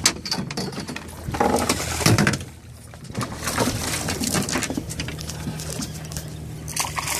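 A boat's engine idling with a steady low hum, under irregular clicks and knocks from a fishing reel being cranked against a hooked bluefish. A louder stretch of knocks and scuffs comes about a second and a half in.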